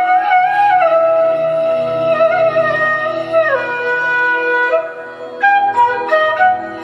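Background music: a flute plays a slow melody of long held notes that slide between pitches, over a steady low drone. The notes turn shorter and quicker near the end.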